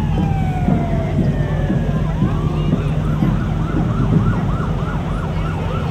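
Emergency vehicle siren winding down in a long falling wail, then switching to a fast yelp of about five sweeps a second. A steady low engine hum sits underneath.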